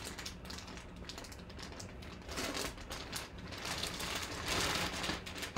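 Clear plastic bag crinkling and rustling as the jersey inside it is handled, a little louder around four to five seconds in.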